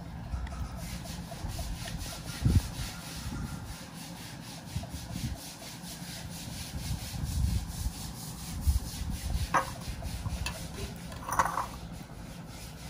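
Rubbing and handling noise at a table as banana-leaf wrappers and a plate are handled, with irregular dull low thumps, a sharp click about nine and a half seconds in and a short rustle about eleven seconds in.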